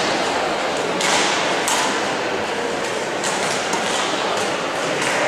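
Badminton rackets hitting shuttlecocks now and then: short sharp smacks a second or so apart, ringing in a large sports hall over steady hall noise.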